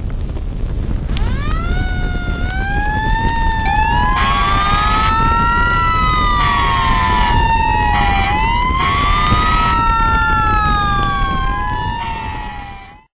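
Several emergency-vehicle sirens wailing together, each rising and falling in pitch, with four bursts of a harsher pulsing sound among them, over a steady low rumble. The sirens come in about a second in and fade out just before the end.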